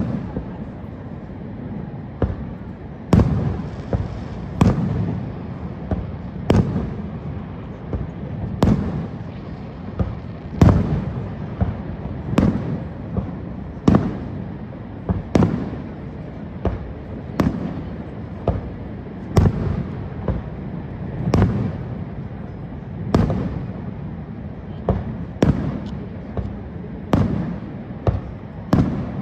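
Fireworks bursting overhead, one sharp bang every second or two, each with a short echoing tail, over a steady low rumble.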